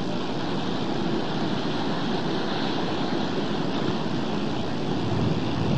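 Steady rushing noise of sea waves mixed with wind, even and unbroken throughout.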